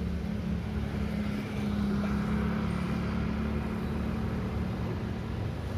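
Road traffic at a city intersection: motor vehicles running close by, with a steady low engine hum that swells slightly about two seconds in.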